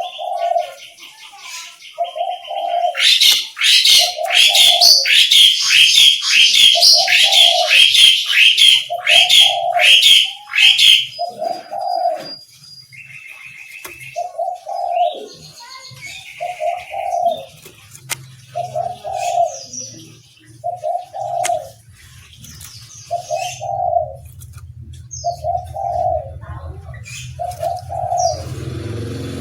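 Oriental magpie-robin (kacer) singing loud, rapid high chirping phrases for several seconds, then softer snatches of song. Under it a dove coos over and over, about one coo every second and a half.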